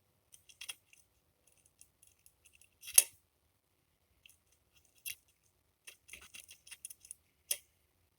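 Small tools and plastic parts being handled on a workbench: scattered light clicks and scrapes, with a sharp click about three seconds in, a cluster of small clicks around six to seven seconds, and another sharp click near the end.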